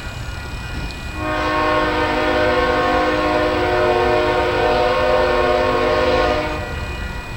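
Locomotive air horn sounding one long blast of several notes at once, starting about a second in and cutting off after about five and a half seconds, over a low rumble.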